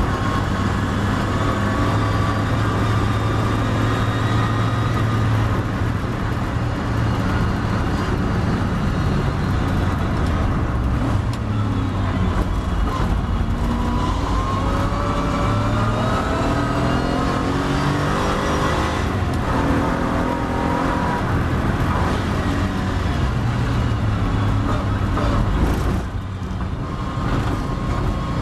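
Triumph TR7 race car's engine heard from on board at racing speed: held high at first, then dropping in pitch as the car brakes and shifts down for a corner, then rising again in repeated climbs broken by gear changes as it accelerates out.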